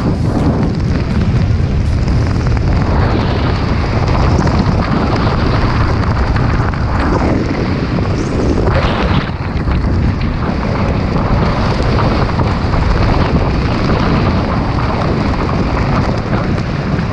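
Wind buffeting the camera's microphone during a parachute descent: a loud, steady, deep rushing noise.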